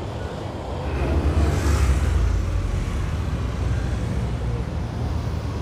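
City street traffic: a steady low rumble, with a car passing close, swelling to its loudest about two seconds in and then fading.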